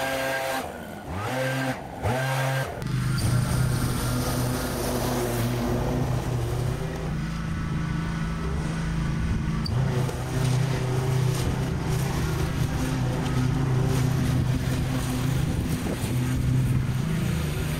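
A backpack leaf blower's small petrol engine, its pitch dipping and rising in the first few seconds, gives way about three seconds in to a mower's petrol engine running steadily under load while it cuts long grass.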